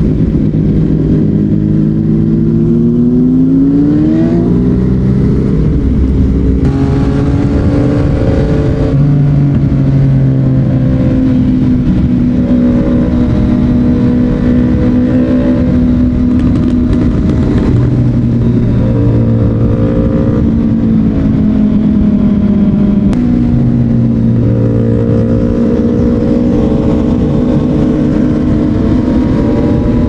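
Yamaha MT-09's three-cylinder engine through a Yoshimura R55 slip-on exhaust, under way: the revs climb through the first few seconds, then it runs at mostly steady revs with several sudden changes in pitch as it shifts gear. Wind noise rumbles on the microphone beneath it.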